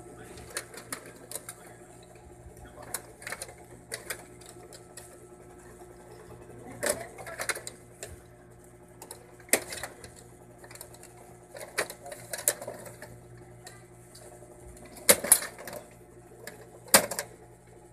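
Irregular plastic clicks and knocks from the white plastic carriage parts of an HP Smart Tank 615 inkjet printer being handled and worked loose by hand, with two louder knocks near the end.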